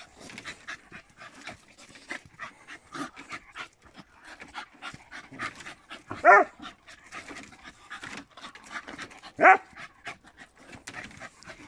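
Jagdterriers panting hard and scuffling as they leap at a hanging fur. Two short, loud yelps come about six and nine and a half seconds in.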